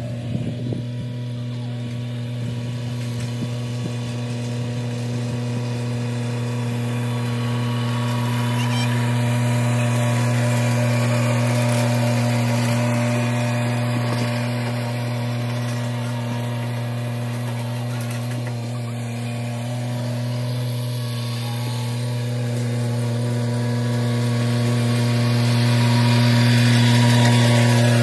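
John Deere compact tractor's diesel engine running at a steady speed while it pulls a roller crimper, with a strong even hum. It grows louder as the tractor draws close near the end.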